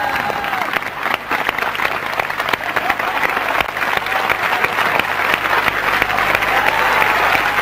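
Audience applauding steadily, with some voices heard through the clapping.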